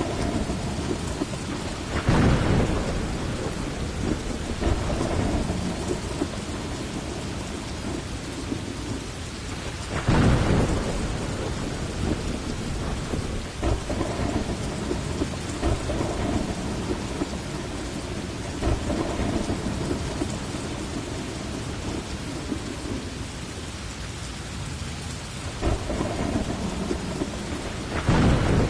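Steady heavy rain with thunder rolling several times, loudest about two seconds in, about ten seconds in and near the end.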